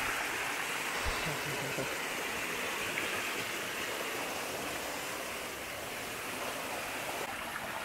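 A small mountain waterfall and stream running steadily, heard as an even hiss of water close by.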